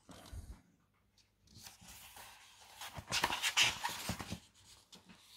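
Pages of a glossy magazine being turned by hand, paper rustling and flapping, loudest about three to four seconds in.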